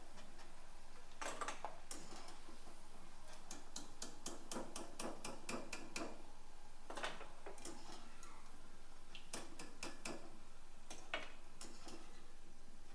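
Peanuts and crushed garlic frying in hot oil, crackling with many irregular little pops, while a spoon lifts them out of the pan with a few louder knocks.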